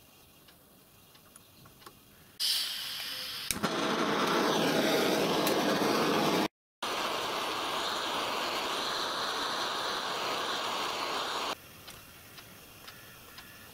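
Gas torch flame hissing steadily as it heats a steel joint for brazing. It starts about two and a half seconds in, breaks off for a moment near the middle, and stops about two seconds before the end.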